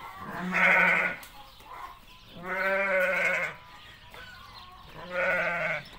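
A ewe bleating three times, low calls with the middle one the longest, calling for her newborn lambs.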